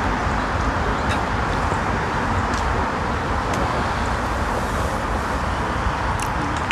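Steady rushing outdoor background noise, with a few faint clicks.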